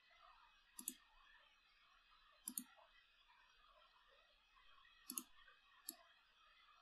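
Four sharp clicks of a computer mouse button, spread a second or more apart, over faint room hiss.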